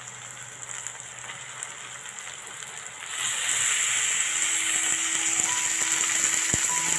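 Raw country chicken pieces sizzling in hot oil and fried masala in an iron kadai. A low sizzle jumps sharply louder about three seconds in as the bulk of the chicken goes into the pan, then holds steady.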